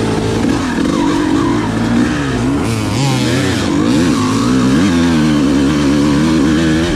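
Dirt bike engine being ridden on the throttle, its note rising and falling several times as the revs go up and down, then holding steadier and higher near the end.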